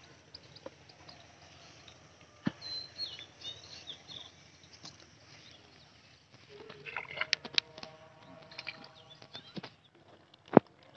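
A bamboo tube fish trap being pulled from the edge of a pond and handled: a few seconds of clattering knocks and scraping with water noise past the middle, then one sharp knock near the end, the loudest sound.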